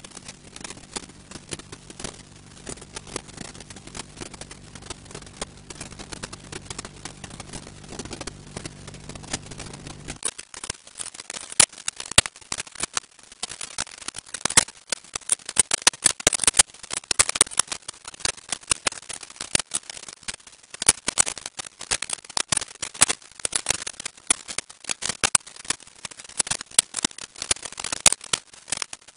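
Low steady electrical-sounding hum that cuts off about ten seconds in, followed by dense, irregular crackling clicks.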